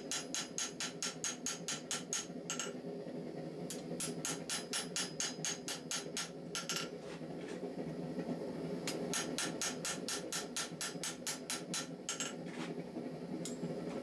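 Hand hammer striking red-hot knife steel on an anvil in quick runs of about four sharp blows a second. The runs break off about three seconds in, for a couple of seconds near the middle, and briefly near the end. A steady low drone lies underneath throughout.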